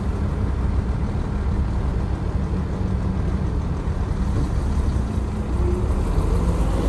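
Dump truck's diesel engine running steadily as the hydraulic hoist tips the loaded bed higher, with a faint rising whine late on.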